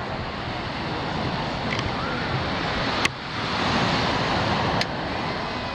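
Ocean surf washing onto a sandy beach: a steady rushing noise. It grows louder from about three to five seconds in, and that louder stretch starts and ends with a sharp click.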